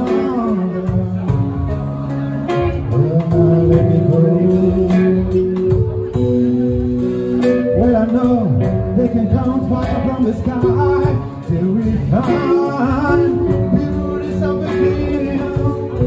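Live band playing a song on electric guitars, keyboard and drum kit, with a man singing.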